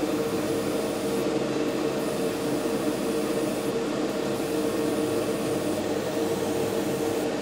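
Steady hum and rush of a spray-booth exhaust fan, with the hiss of an airbrush spraying thinned matte clear coat.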